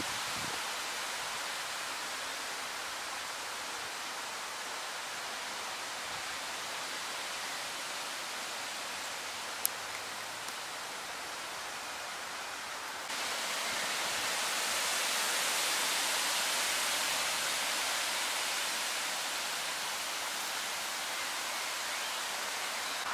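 Steady outdoor background hiss with no distinct source, turning brighter and a little louder suddenly about thirteen seconds in, with one faint click a little before that.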